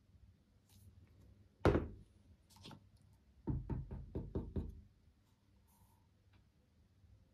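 One sharp knock on a hard surface, then a couple of seconds later a quick run of about six taps.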